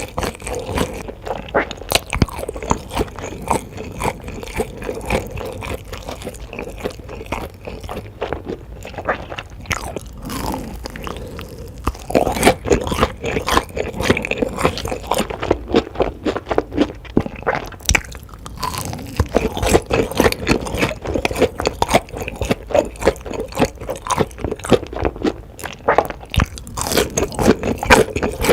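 Close-miked ASMR eating: a person biting and chewing crunchy food, with dense rapid crunches that grow louder about halfway through.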